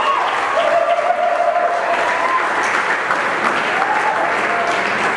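Guests applauding steadily, with a few voices heard faintly over the clapping.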